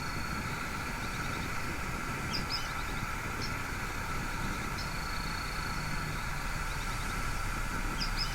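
Steady rushing of a waterfall. A faint high bird call, a held whistle followed by a few short chirps, comes twice over it.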